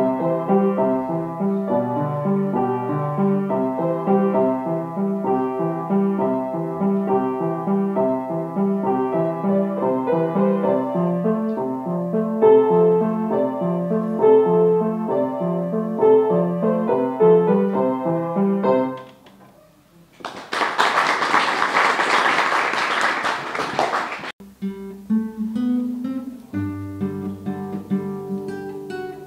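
Grand piano solo, a melody over a steady repeating bass pattern, ending about two-thirds of the way through. About four seconds of applause follow, and then a nylon-string classical guitar starts playing.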